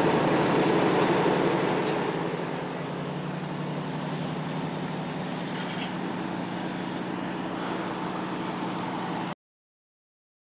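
Boom truck's engine running steadily with a constant low hum, dropping somewhat in level about two seconds in; the sound cuts off suddenly near the end.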